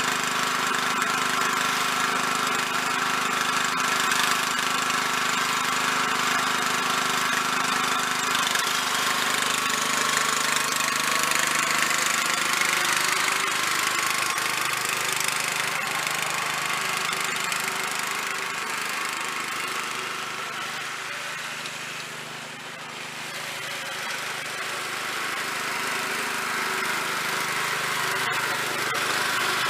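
Snapper rear-engine riding mower's small engine running steadily; its note shifts about nine seconds in, and it fades briefly about three-quarters of the way through before coming back up.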